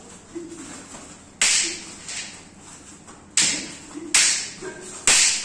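Wooden practice swords striking in sparring: a series of sharp cracks roughly a second apart, with a softer hit between the first two.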